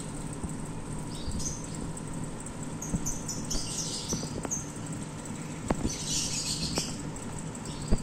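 Daikin mini-split outdoor condenser unit running with a steady low hum. Over it, small birds chirp in several short bursts.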